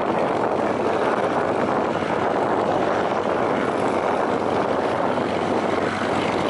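Goodyear Zeppelin NT airship's vectoring propeller engines running as it passes low overhead, a steady, even noise.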